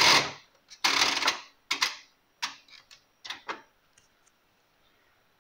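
Programme-selector knob on a Zanussi Aquacycle ZTI 823 washing machine being turned by hand: a run of loud clicks and clunks, spaced unevenly, thinning out after about three and a half seconds with a couple of faint ticks.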